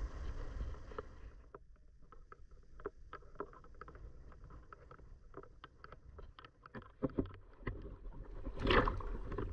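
Gentle water lapping at a sandy shore, with many irregular small clicks and crackles, and a louder wash of water about a second before the end.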